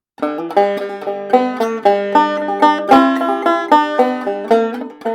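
Clawhammer banjo playing a tune solo, the notes plucked in a steady rhythm over a ringing drone string.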